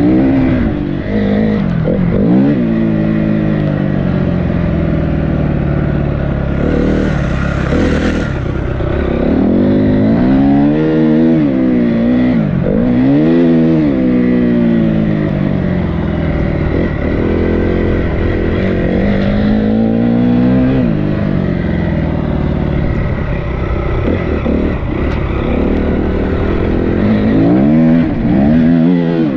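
Dirt bike engine revving up and down as it is ridden, its pitch rising and falling again and again through the gears. A brief hiss cuts in about seven seconds in.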